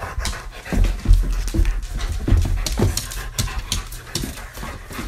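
Weimaraner panting and snuffling right up against the phone, in quick short breaths, with a few low bumps about a second in.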